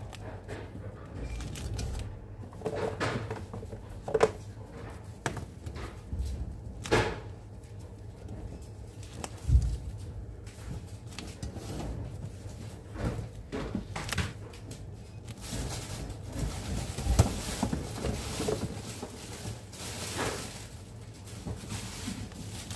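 Handling noise from placing foil-wrapped chocolates on a metal serving tray covered in cellophane: irregular taps, knocks and crinkling of the plastic wrap, with a steady low room hum underneath. A louder crinkling stretch comes about two thirds of the way through.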